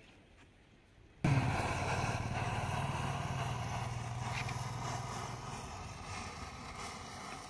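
A motor engine running, cutting in suddenly about a second in with a steady low hum, then slowly fading.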